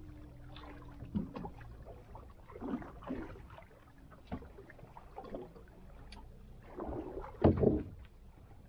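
Water slapping and gurgling against a small boat's hull, with scattered short knocks and clicks on deck. A louder knock about seven and a half seconds in.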